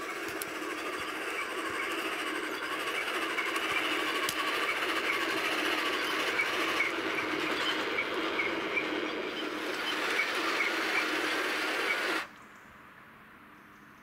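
Radio-controlled model M26 Pershing tank driving: its drive motors and gearboxes whirring with the tracks clattering, growing louder as it comes closer, then stopping abruptly about twelve seconds in.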